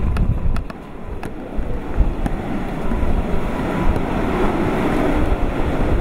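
Typhoon eyewall wind and driving rain roaring, with heavy wind buffeting on the microphone. The roar dips about a second in, then a gust builds over the last couple of seconds.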